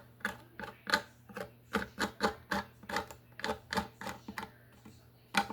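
A hand tool picking and scraping at the mandolin's cracks in a quick, irregular series of sharp clicks, about three a second, as old glue is worked out of them.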